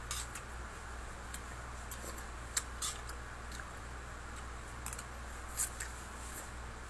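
Fork clicking and scraping against a plate while pancit canton noodles are twirled and eaten, with wet mouth sounds of eating and a strand of noodles slurped near the end. A steady low hum lies underneath.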